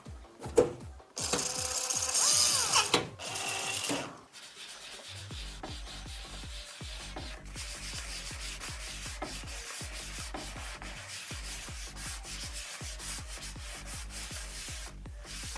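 Rubbing and rustling of a RAM stick's plastic packaging being handled and opened, loudest in the first few seconds, then lighter rubbing with small clicks.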